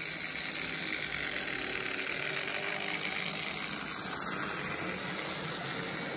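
Märklin H0 model train, a BR 212 diesel locomotive hauling passenger coaches, running past on the track: a steady running noise of motor and wheels, with two light clicks near the end.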